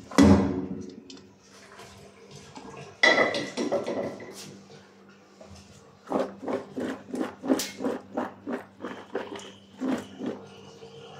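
Water and par-boiled crinkle-cut potato chips splashing out of a pot into a plastic colander in a steel sink, followed by a sudden clatter about three seconds in. From about six seconds in the colander is shaken to drain the potatoes, a steady rhythm of about three soft knocks a second as the chips bump and tumble in it.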